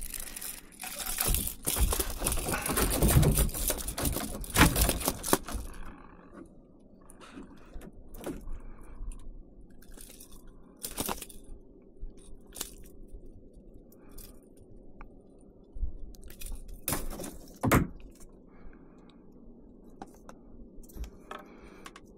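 Noisy handling of a freshly caught fish and fishing gear in a kayak. A few seconds of dense rattling and splashing-like noise as the fish is brought in, then scattered clicks, scrapes and rustles as it is handled and measured.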